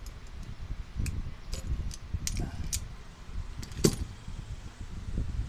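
Metal hand tools, including locking pliers, clicking and clinking as they are handled, with one louder sharp click just before four seconds in.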